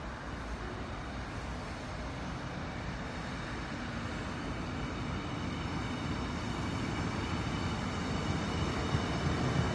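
Electric multiple-unit commuter train running along the track past a platform: a steady rumble of wheels on rail that grows louder toward the end as the train comes close, with a faint steady high whine above it.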